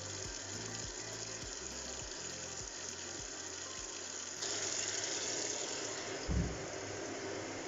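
Automatic washing machine filling and soaking a load of blankets: a steady rush of water that gets louder about four and a half seconds in, with a dull thump about six seconds in.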